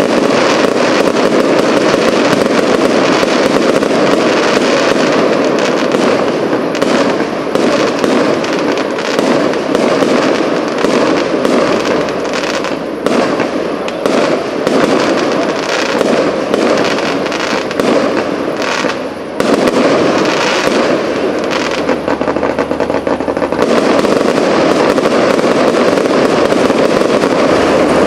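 Fireworks display: aerial shells bursting in a dense, continuous run of bangs and crackles, with a brief lull a little after two-thirds of the way through.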